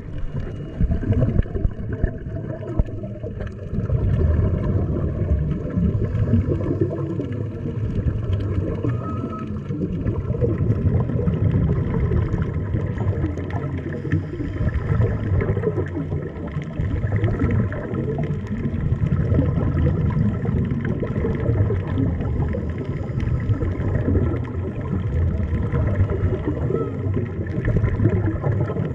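Underwater sound heard through an action-camera housing: a dense, muffled low rumble with bubbly gurgling from a scuba diver's regulator exhaust, and a few faint steady tones above it.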